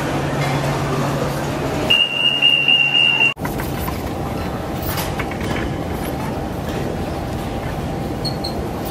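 Airport baggage carousel running, its metal slats rumbling and clattering steadily as suitcases ride past. Before it, about two seconds in, a steady high-pitched beep sounds for about a second and a half.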